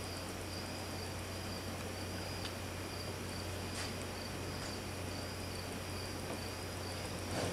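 Steady low hum with a high, pulsing trill over it, and a few faint clicks.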